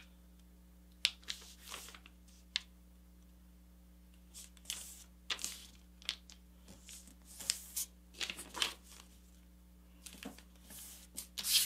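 Thin kami origami paper rustling and crackling as it is folded and creased by hand, in a string of short, irregular rustles and crisp creasing strokes, loudest just before the end.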